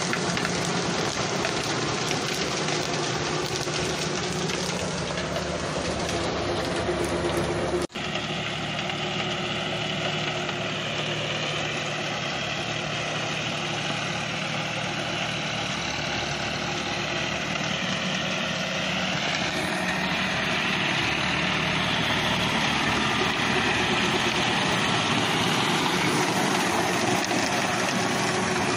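Farm tractor's diesel engine running steadily while its rear rotavator churns wet paddy mud. There is a brief break about eight seconds in, and the sound grows a little louder after about twenty seconds.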